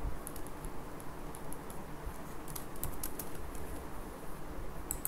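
Computer keyboard typing: irregular, scattered keystrokes, over a steady low background hum.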